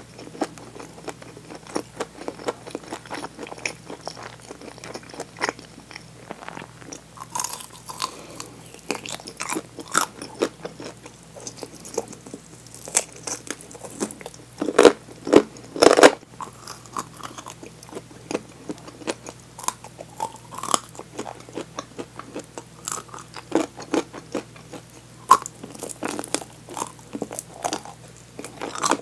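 Close-miked biting and chewing of crispy fried chicken wing drumettes: the fried coating crunches in many short, irregular bites, with the loudest crunches about halfway through.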